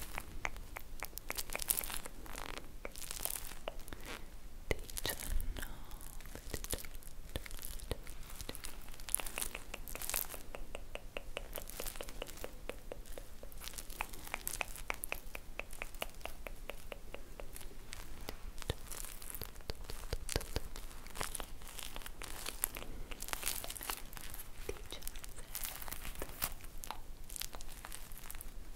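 Close-miked crinkling and crackling from squeezing and handling a squishy toy shaped like an ice cream, with runs of quick, sharp taps.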